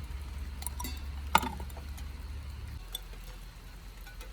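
A few light clicks and clinks of a small hard object, the loudest about a second and a half in, over a low steady hum.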